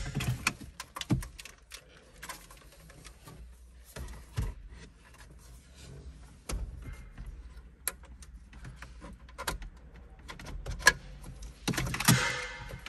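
Scattered clicks, knocks and light rattles of plastic and metal as a Mercedes CLA's factory radio head unit is worked out of its dashboard slot and handled behind for its wiring plug. Near the end there is a louder stretch of scraping and rustling as the unit is shifted.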